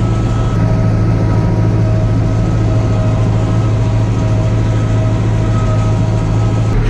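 Tractor engine running steadily under load while pulling a working round baler, heard from the cab with the door open: a strong low drone with faint steady whine tones above it. The tone shifts slightly near the end.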